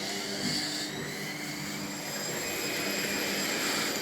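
Washing machine spinning and draining, its motor giving a steady whine that rises slowly in pitch as the drum picks up speed.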